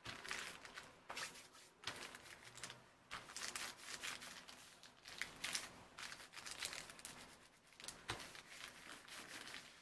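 Hands rubbing and smoothing freshly glued paper onto a glassine envelope: repeated dry, rustling, crinkly strokes, about one or two a second, as the paper is pressed flat.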